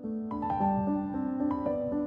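Background music: a piano playing a melody of held notes that change every half second or so.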